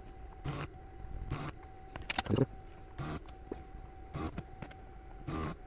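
Desoldering gun's vacuum pump switching on in short bursts, about six of them, each a fraction of a second, sucking molten solder off the capacitor leads on a circuit board. A faint steady high tone runs underneath.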